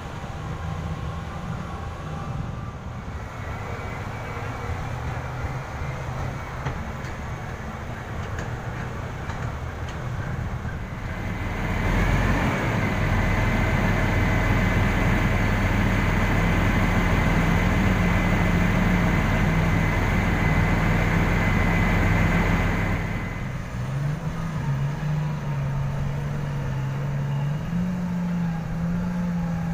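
Mining haul truck's diesel engine running close by. It grows louder about twelve seconds in, with a steady high whine over it for about ten seconds, then eases and rises in pitch in steps near the end.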